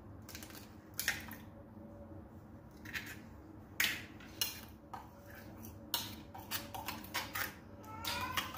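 Metal spoon clinking against a glass bowl while stirring an egg into mashed banana. Scattered taps at first, coming quicker near the end.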